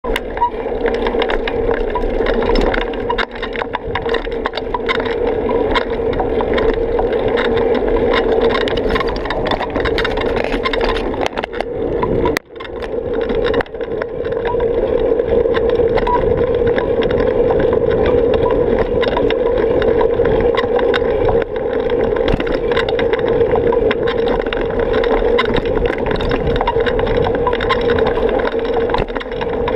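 Steady, muffled noise of a bicycle ride picked up by a camera riding along: wind and road rumble. It dips briefly about twelve seconds in.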